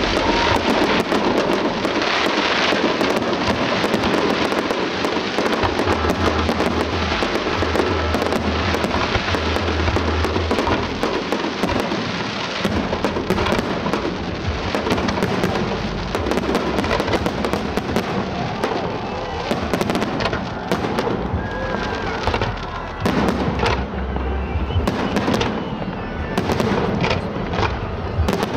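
Fireworks display: a continuous string of rapid, overlapping aerial shell bangs and crackles.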